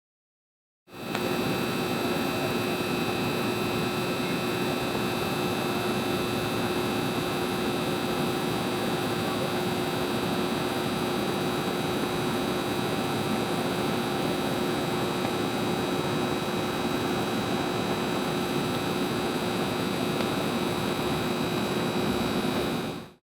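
Neon sign buzzing steadily: a constant electrical hum with several fixed tones over a hiss, its lowest rumble filtered out. It fades in about a second in and fades out just before the end.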